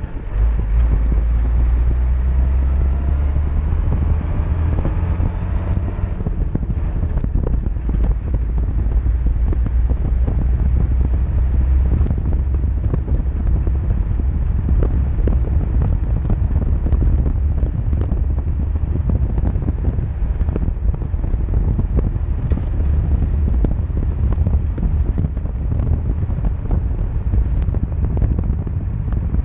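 Classic Mercedes-Benz car driving along a road: a steady low rumble of wind on the microphone mixed with road and engine noise.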